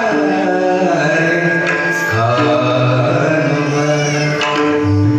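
Indian devotional singing: a voice holds and bends a slow melody over held instrumental notes, with light percussion.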